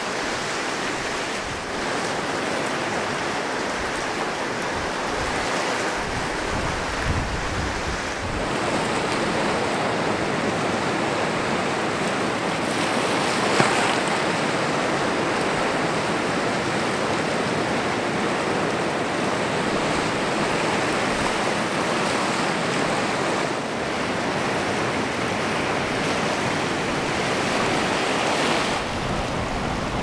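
Ocean surf washing steadily on the shore, with wind buffeting the microphone in low rumbles now and then.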